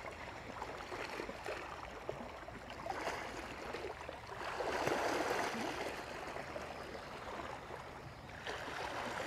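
Sea water washing and lapping against shoreline rocks, with one louder surge of wash about halfway through.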